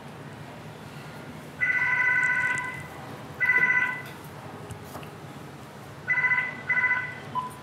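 Mobile phone ringing with a bright electronic ringtone in four bursts: two longer rings, then two short ones close together near the end.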